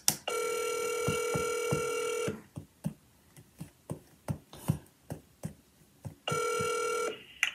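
Ringback tone of an outgoing phone call: a steady two-second ring, about four seconds of quiet, then a second ring that stops after about a second. It is the sign that the line is ringing at the other end and not yet answered. Faint ticks and taps fill the gap between rings.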